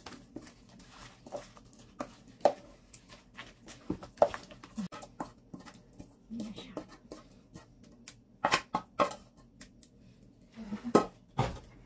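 Spatula scraping and knocking against a stainless steel pot as wet chopped vegetables are scraped out into a plastic basin: irregular clicks and knocks, a few louder than the rest.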